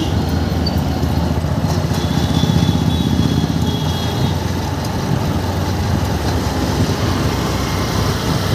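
Engine and road noise from riding in a moving vehicle through street traffic, a steady low rumble.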